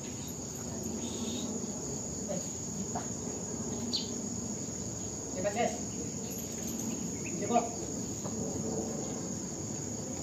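Steady high-pitched drone of insects, likely crickets, with a few brief faint knocks and shuffles about five and a half and seven and a half seconds in.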